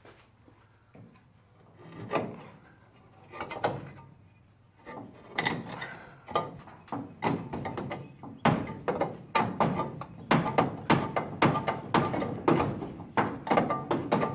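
Repeated metal knocks and scrapes as a welded-on motor mount bracket is worked loose from a car frame. A few scattered knocks at first, then from about five seconds in a steady run of sharp strokes, two or three a second, growing louder.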